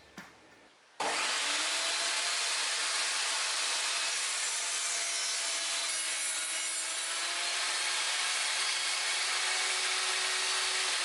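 Lotus LTST1800X table saw cutting through wood: a steady, loud cutting noise with a faint whine from the spinning blade, starting suddenly about a second in.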